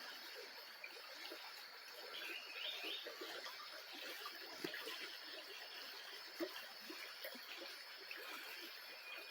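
Faint high chirping of nestling birds, one short quick chirp call about two seconds in, over a steady trickling noise.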